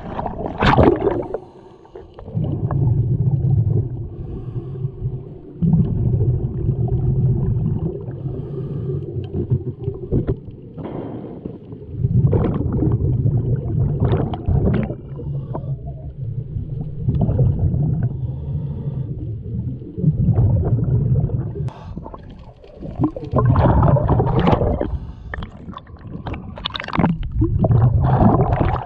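Scuba diver breathing through a regulator underwater: each exhale sends out a low rumble of bubbles lasting two to four seconds, starting and stopping abruptly, with short quieter gaps for the inhales. Louder gurgling bubble bursts come about halfway through and again near the end.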